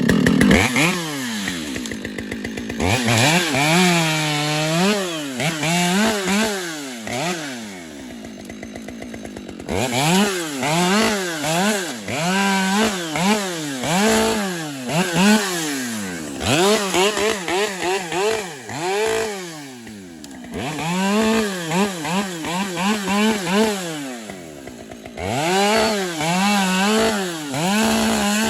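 Chainsaw limbing a felled tree: the engine revs up and falls back over and over as each branch is cut through. It settles to slower running for a second or two about eight seconds in and again near the end.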